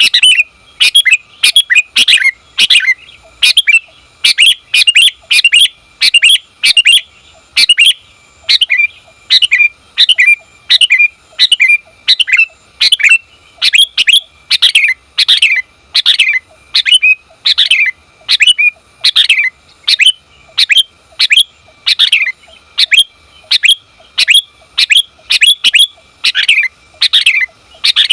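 Female sooty-headed bulbul calling over and over, short sharp notes close to two a second, each dropping in pitch: a female call used to lure males into answering.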